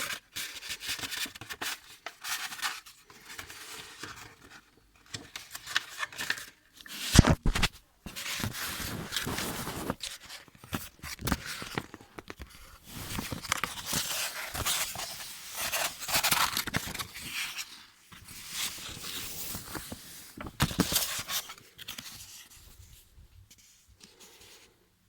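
Packaging being handled and torn open by hand: irregular rustling, scraping and tearing, with one sharp thud about seven seconds in, trailing off near the end.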